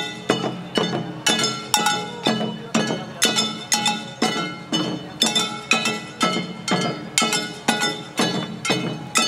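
Jangara nenbutsu dance music: small hand-held kane gongs struck in a steady beat, about two strikes a second, each ringing on brightly.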